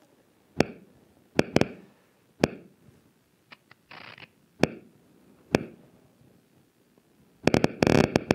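Audio of a single human neuron's action potentials played over a loudspeaker. Scattered single clicks come a second or so apart, then about seven and a half seconds in a dense rapid crackle of clicks begins. The burst is the cell starting to fire as a memory, here of the Hollywood sign, is recalled.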